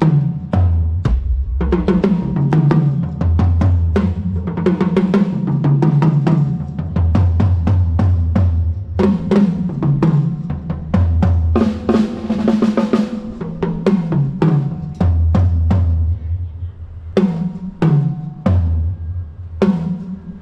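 Drum kit played during a band sound check: rapid snare, kick and tom hits in a continuous groove with fills. It thins to sparser hits for a moment about two-thirds of the way through.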